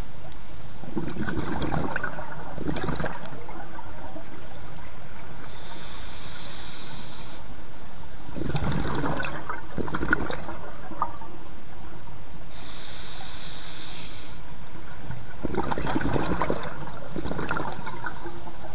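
Scuba diver breathing through a regulator in a slow, even cycle: a hissing inhale through the demand valve, then a long bubbling rush of exhaled air, repeating about every seven seconds (three exhales, two inhales).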